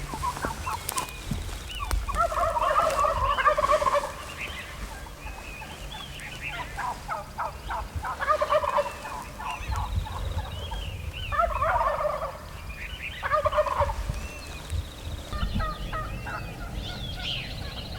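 Gould's wild turkey gobbling from the roost, four or five loud rattling gobbles spaced a few seconds apart. Small birds chirp faintly in the background.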